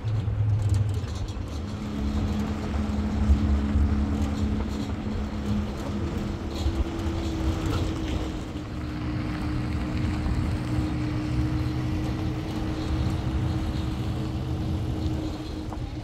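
A motor running steadily over a low rumble, with a hum whose pitch steps up about six seconds in.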